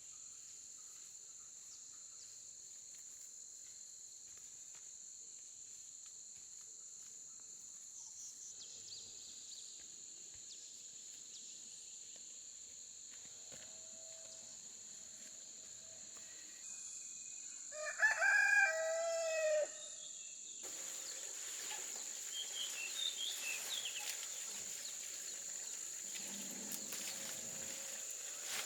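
A rooster crows once, loud and about two seconds long, over a steady high-pitched insect drone.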